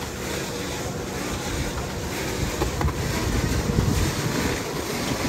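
Tractor-driven bale wrapper at work: the tractor engine runs steadily while the wrapper turns a haylage bale, with wind buffeting the microphone. The rumble grows a little louder about three to four seconds in.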